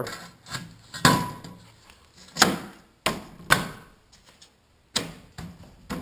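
About five sharp knocks, a second or so apart, with softer scraping and handling in between, as the end piece of a garage door panel is worked into place on the panel's cut edge and slid under its rubber gasket.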